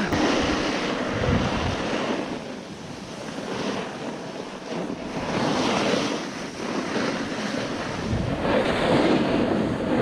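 Wind rushing over the microphone, a loud steady noise that swells and eases every couple of seconds.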